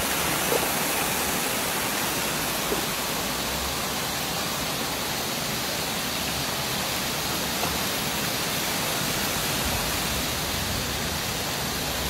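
Shallow water rushing steadily over a concrete spillway, a constant even hiss of flow.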